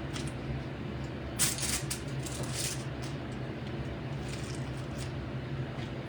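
Quiet kitchen handling noises while raw chicken breasts are arranged in a baking dish: two brief rustles or scrapes about one and a half and two and a half seconds in, over a steady low hum.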